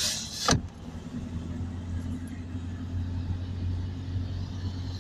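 Inside a moving car on a wet highway: the steady low drone of engine and tyres on the wet road. It opens with a brief loud hiss that cuts off about half a second in.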